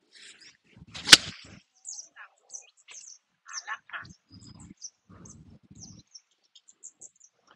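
A single sharp crack of a 48-degree wedge striking a golf ball off fairway grass, about a second in. Birds chirp throughout.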